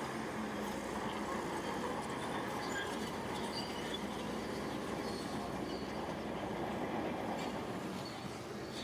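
Shantui crawler bulldozer running steadily under load, its engine drone mixed with scattered short high squeaks and clanks from the steel tracks.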